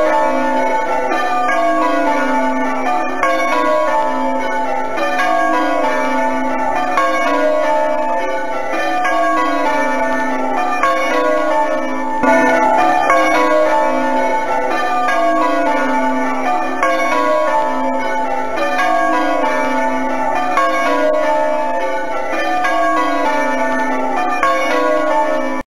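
Church tower bells ringing one after another in a steady, repeating pattern. The sound cuts off abruptly at the very end.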